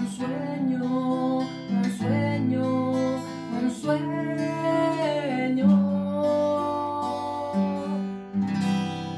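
Acoustic guitar strummed in chords while a man sings long held notes over it, ending with a last strummed chord about eight seconds in that is left ringing.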